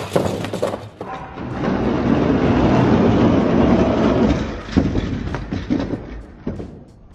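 Diecast toy monster trucks rolling fast down an orange plastic Hot Wheels track, a steady rumbling rattle of the wheels on the plastic, then a few sharp knocks as they hit the cork course and its obstacles.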